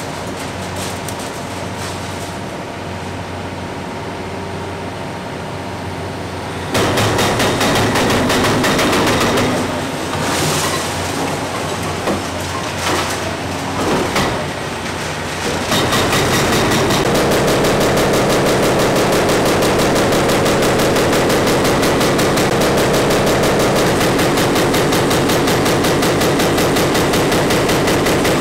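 Hitachi Zaxis 490 excavator's hydraulic breaker hammering concrete, over the steady run of the machine's diesel engine. The engine runs alone at first. The blows start about seven seconds in, loud and uneven, then settle about halfway into a fast, even hammering that carries on.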